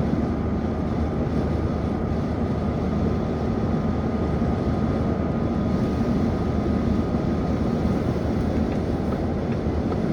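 Steady low rumble of a moving vehicle, with a faint thin whine above it that fades out near the end.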